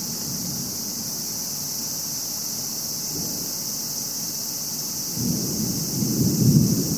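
Thunder rumbling low, swelling and building up from about five seconds in, over a steady high hiss.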